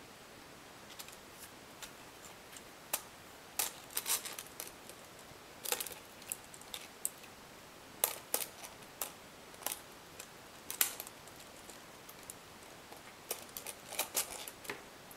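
Irregular small clicks and taps of a quadcopter's aluminium boom being handled and fitted onto the screws of the chassis plate, coming in scattered clusters.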